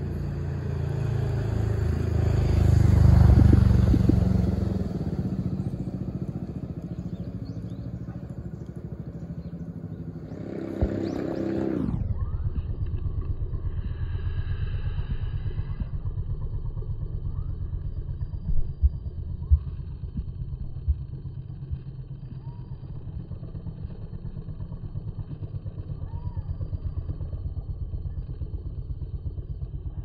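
Low rumble of road traffic: a vehicle passes loudly about three seconds in, then a sound sweeps sharply down in pitch around twelve seconds in, and a steady low rumble carries on.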